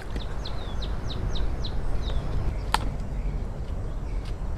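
A small bird calling a quick series of short, high, falling chirps, about four a second, then a single sharp click a little past the middle, over steady low background noise.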